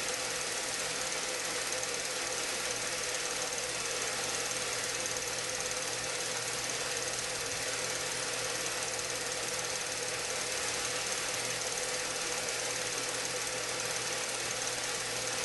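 Steady mechanical whirring with a fast, even clatter and a constant hum, the running sound of a film projector on the soundtrack of a copy of the silent 1967 Patterson–Gimlin film.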